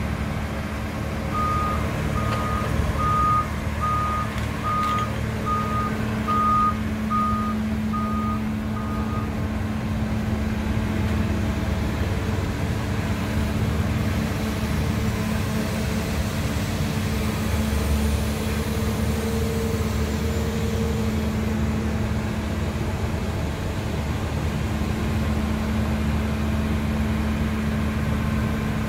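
Hyundai R320LC-9 excavator's Cummins QSC diesel engine running steadily, with its warning alarm beeping a little faster than once a second for about the first nine seconds, then stopping.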